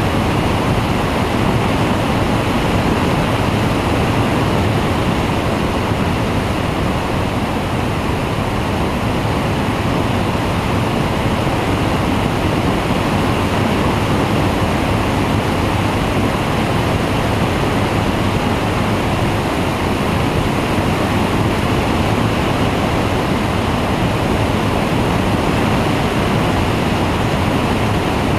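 Steady rush of airflow over the wing-mounted camera's microphone on a flexwing microlight trike in cruise flight, with the trike's engine and pusher propeller droning underneath.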